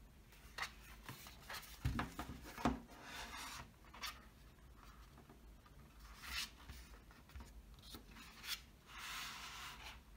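Cardboard DVD packaging being handled and folded open: card panels sliding and rubbing against each other and the fingers, in several short swishes, with a few soft knocks, the loudest about two to three seconds in.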